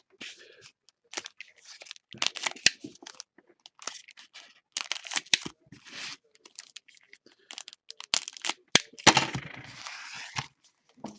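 Trading-card packs being torn open and their wrappers crinkled, with cards handled: irregular rustling tears and small clicks, the longest stretch of tearing about nine seconds in.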